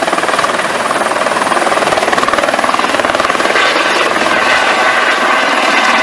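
Eurocopter EC130 helicopter lifting off into a hover: a fast, steady rotor chop under the turbine's whine, which grows stronger about halfway through as it climbs.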